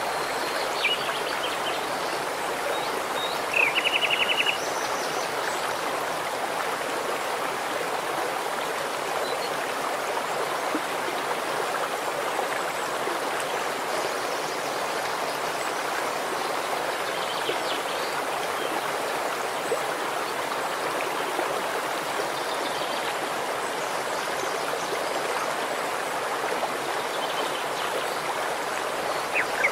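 Shallow rocky stream running over stones, a steady rush of water. Birds chirp now and then, with a short rapid bird trill about four seconds in standing out above the water.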